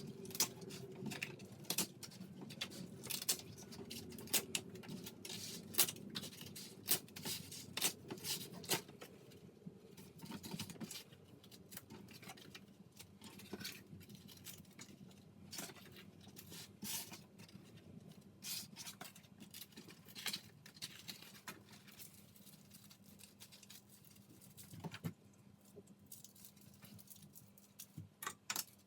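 Irregular light clicks, taps and scratchy rustling of small things being handled, busier in the first half and sparser toward the end.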